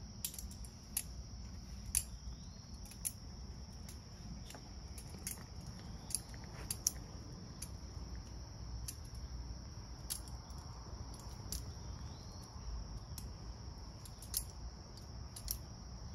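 Outdoor insect ambience: a steady high-pitched drone of insects, with scattered sharp clicks every second or so and a low rumble underneath.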